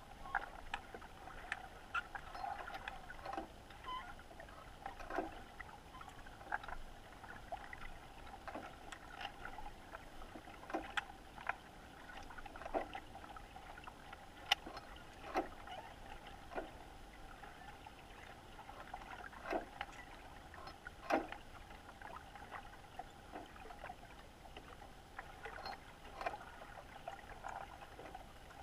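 Underwater ambience picked up through a camera's waterproof housing: scattered, irregular clicks and ticks over a steady hum.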